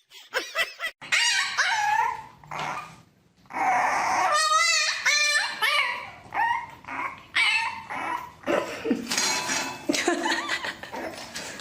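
A dog whining and yipping in a string of high-pitched, wavering cries, with a short break about three seconds in.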